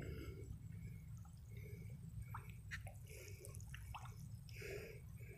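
Faint wet sucking sounds with scattered small clicks: a man sucking blood from a catfish-spine stab wound on his hand to draw out the venom.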